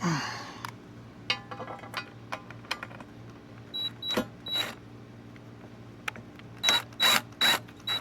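Socket ratchet clicking as bolts are run into a jet ski's ride plate. A run of light metallic clicks comes first, then short ratcheting strokes: three around the middle and four near the end.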